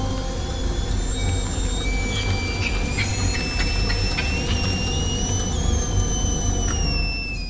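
Stovetop kettle whistling on a gas flame as it comes to the boil: one shrill, steady whistle that creeps up in pitch, then slides slowly down near the end. A few light clicks come partway through, over a steady deep rumble.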